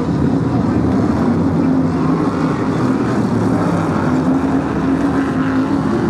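BriSCA F1 stock car engines running loud and steady as the pack circulates the track under the chequered flag at the end of the race.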